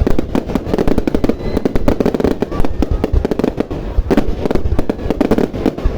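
Fireworks display going off: a dense, rapid barrage of bangs and crackling with a deep rumble, the shots coming many times a second.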